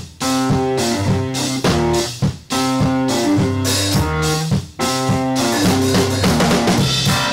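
Intro music with a drum beat, cutting out briefly about every two and a half seconds.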